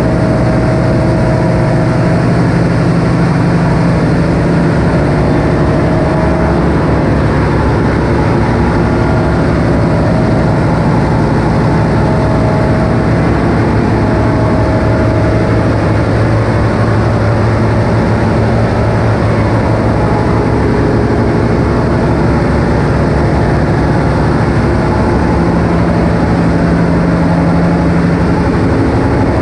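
A ship's engine-room generator engine running steadily, a loud, even machinery drone with a low hum that does not change.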